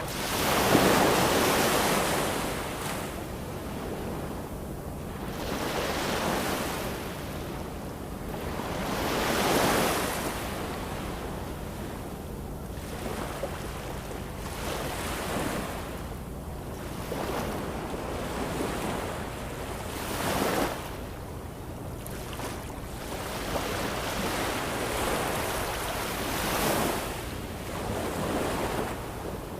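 Ocean waves breaking and washing onto shore, a surge every few seconds over a steady rush of surf, the biggest about a second in.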